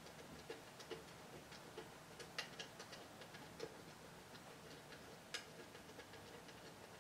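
Faint, irregular small clicks and ticks as fingers thread in the small plastic thumb screws on an air valve's exhaust speed controls, closing them to slow a pneumatic cylinder's rise and descent. One click a little past the five-second mark is sharper than the rest.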